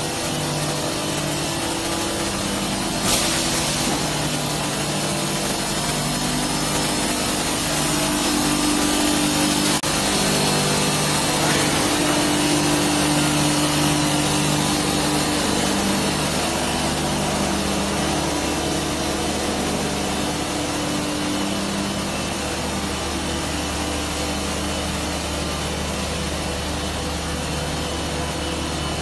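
Steel pipe roll forming and welding line running: a steady, loud machine noise of rollers and drives, with a constant low hum under a dense hiss and a single short knock about three seconds in.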